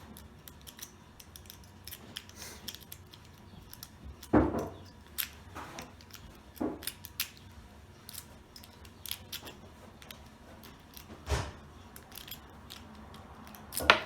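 A homemade metal lockpick rake clicking and scraping over the pin tumblers of an American Lock 1100 padlock as it is raked under light tension, with a few louder knocks among the quick clicks.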